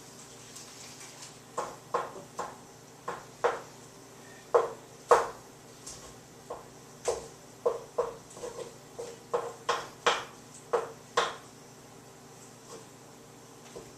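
A utensil clanking and knocking against a cooking pot, sharp irregular strikes that come in quick runs from about a second and a half in until near the end, as butter is stirred into cooked sausage to melt.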